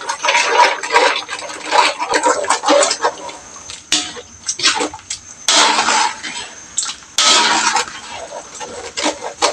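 A metal spoon stirring a thin sauce in a metal wok, with the liquid sloshing and the spoon clinking and scraping against the pan. The sound jumps abruptly louder about five and a half and seven seconds in.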